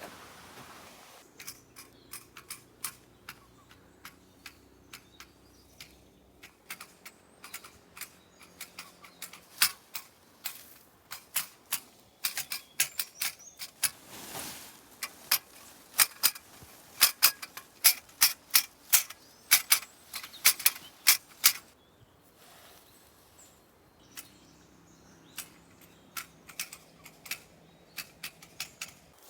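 Tea harvesting: tender shoots snapped or clipped from tea bushes in a quick, irregular run of sharp clicks. The clicks are sparse at first, come several a second through the middle, then thin out again.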